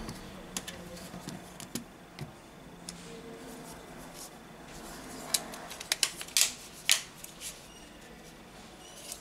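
Small sharp clicks and rubbing from the parts of a phone being pressed and snapped together by hand. The clicks are scattered, with a cluster of louder ones from about five to seven and a half seconds in.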